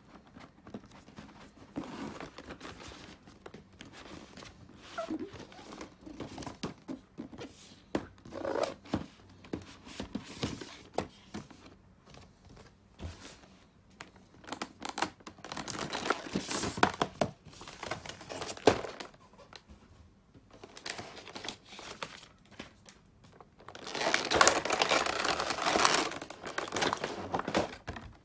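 Handling of a cardboard figure box and its plastic packaging: a plastic blister tray and plastic wrap crinkling and rustling, with scattered clicks and taps. There is a long, loud stretch of crinkling near the end.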